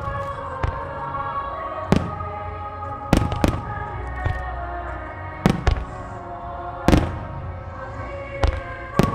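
Starmine fireworks bursting in sharp booms, about eight of them at irregular intervals, over music playing throughout.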